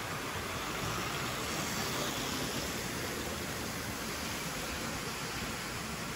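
Model railway diesel locomotive, a class 56, hauling a train of coal hopper wagons along the track: a steady rolling rumble of wheels and motor that swells a second or two in as the train passes close, then eases off.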